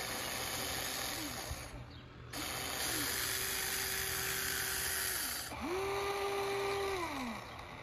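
Huina 1594 RC excavator's electric motors whining as the arm and bucket move: three whines that rise in pitch, hold and fall away as each motion stops, the last the loudest, over a steady hiss.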